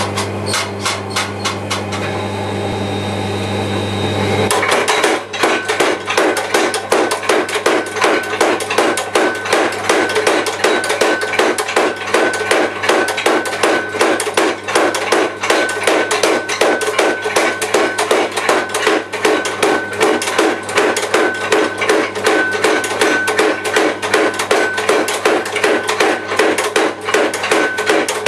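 Belt-driven mechanical power hammer (belt hammer) forging hot steel, its ram striking the work in fast, even blows. About four seconds in, a low hum drops away and the blows become louder and quicker, about five a second, with a thin steady ringing tone under them.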